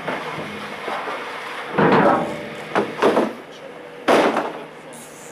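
Four loud, sudden knocks or clatters in about two and a half seconds, over steady background noise.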